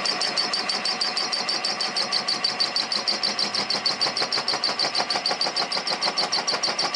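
Lathe machining metal with a rotating single-blade cutter: an interrupted cut that clicks evenly several times a second, once per turn, over a steady high whine.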